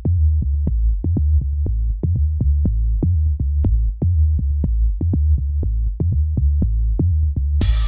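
Electronic dance music: a heavy pulsing bass line with a steady drum-machine beat, brighter synth layers coming in near the end.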